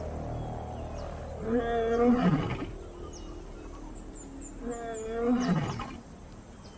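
Lion roaring: two long, deep calls about three seconds apart, each sliding down in pitch at its end.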